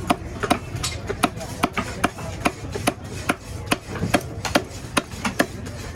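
Knife chopping through a stingray, steady strokes about two and a half a second.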